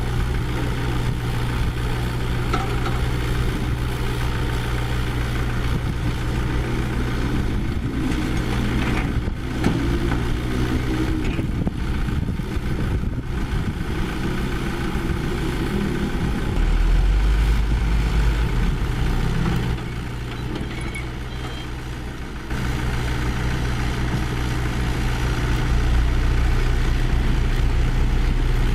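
Diesel engines of construction machinery running steadily. About two-thirds in the engine note deepens and grows louder, drops briefly, then picks up again.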